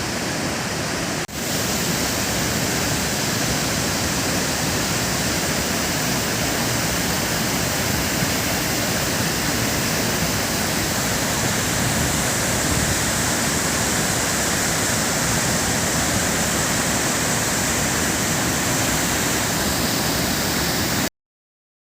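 High Force waterfall in full flow: a steady, even rush of heavy falling water, with a brief dip about a second in, cutting off abruptly near the end.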